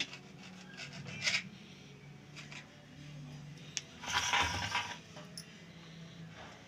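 Small kitchen knife cutting the crusts off slices of white bread against a hard board: scattered scraping strokes and sharp clicks, with a louder, longer scrape about four seconds in.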